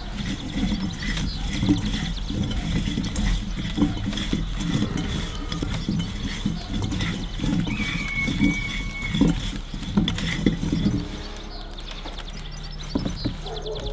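Hands tossing cherry tomatoes and small potatoes with oil and seasoning in a glass bowl: irregular soft knocks and rolling of the vegetables against the glass, which stop about eleven seconds in.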